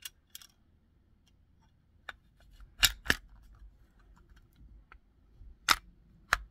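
Hi-Point CF380 pistol's slide being worked back onto its frame by hand, metal on polymer. Scattered small clicks and scrapes, a loud pair of clicks about three seconds in and two more near the end as the slide and recoil spring go into place.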